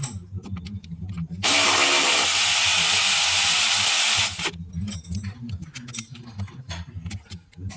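A power tool run in one continuous burst of about three seconds, the loudest sound here. Scattered clicks and knocks of tools being handled come before and after it.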